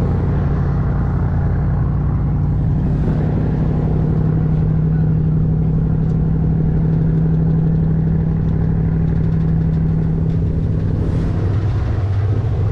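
A riverboat's engine running steadily with a low drone, its note dropping lower near the end.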